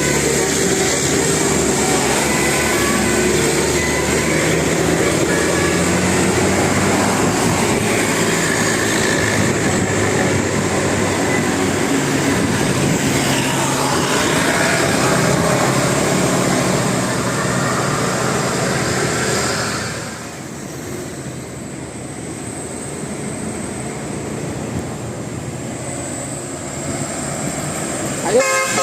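Loud steady roar of heavy vehicles passing close by. It eases off about two-thirds of the way through, and a musical bus horn starts sounding right at the end.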